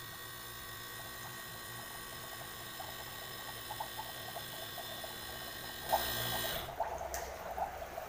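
A running compressor hums steadily while R-141b flushing solvent and gas bubble out of a hose into a bowl of water. The bubbling starts about three seconds in, gushes louder just before six seconds, and the hum cuts out near the end. This is the outflow of a refrigerator system being flushed clean.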